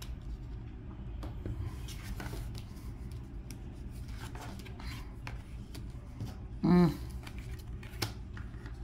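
Tarot cards being turned over, slid and laid down on a table: light taps and soft rustles of card stock. About seven seconds in, a person gives one short hum.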